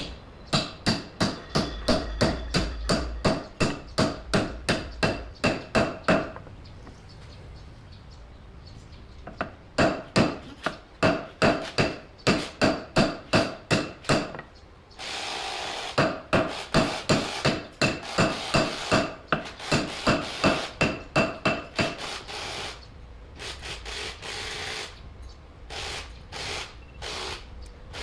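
Hammer striking metal in steady runs of blows, about two to three a second, each blow ringing, with a pause of a few seconds partway through. Near the middle there is a brief scraping noise, and the blows become more irregular toward the end.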